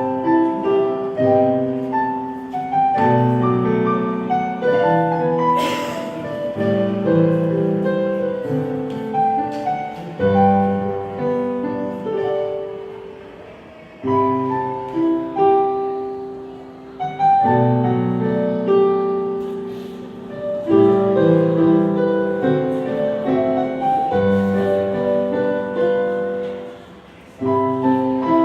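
Piano playing a melody over chords, in phrases of struck notes that ring and fade, with short lulls between phrases.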